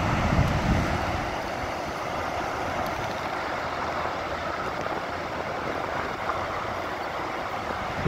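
Floodwater of the swollen Yellowstone River rushing past, a steady hiss of fast water, with wind buffeting the microphone.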